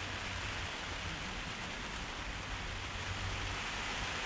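Steady rain falling on the fabric of a Quechua AirSeconds 4.1 tent, heard from inside the tent as an even hiss.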